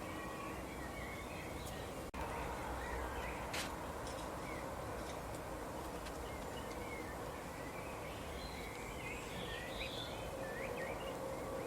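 Small birds chirping: many short, scattered chirps, busier in the second half, over a steady background hiss with a faint hum.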